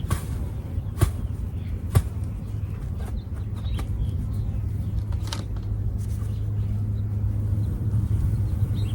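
Two sharp knocks about a second apart as the bee package tube is tapped to knock the bees down, followed by a few fainter clicks, over a steady low hum that grows a little louder near the end.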